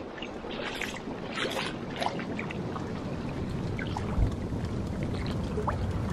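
Water lapping and splashing at the surface of an outdoor geothermal pool close to the microphone, with drops pattering on the water. A low bump about four seconds in.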